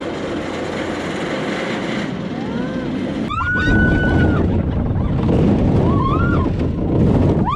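A ride on a roller coaster, heard from the train: a rumble of the cars on the track and wind buffeting the microphone, growing louder about halfway through. Over it come riders' high shrieks, one held for about a second.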